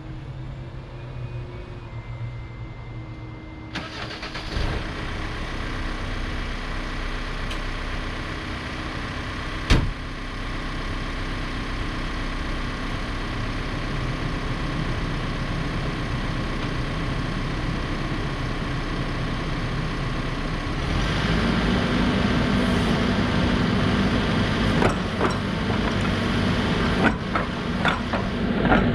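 Case 590 Super N backhoe loader's diesel engine running, stepping up suddenly about four seconds in and again to a harder, louder run from about twenty seconds in as the machine is worked. A single sharp clank comes about ten seconds in, and a few knocks near the end.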